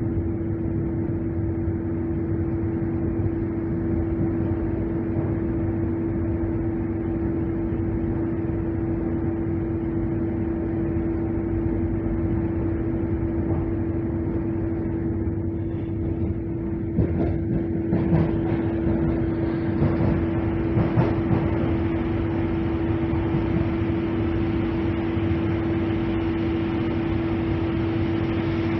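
Cabin noise of a moving ER9M electric multiple unit: a steady hum with one constant tone over the rolling rumble. Past the middle comes a run of sharp knocks as the wheels pass over the track.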